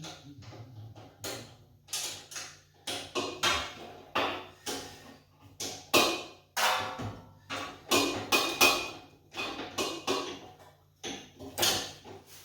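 Hand tools and metal parts knocking and clanking against the generator's steel frame during assembly: a quick irregular run of sharp knocks, some ringing briefly.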